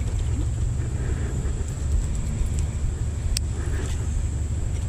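Steady low rumble of wind buffeting the microphone, with one sharp click about three and a half seconds in.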